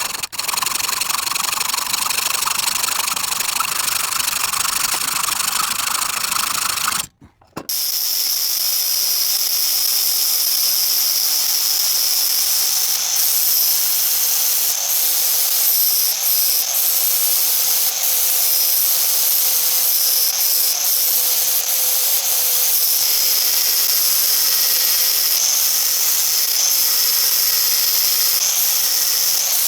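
A power tool runs steadily, working on the cast-iron vise to clean up its surfaces. It stops briefly about seven seconds in, then runs on.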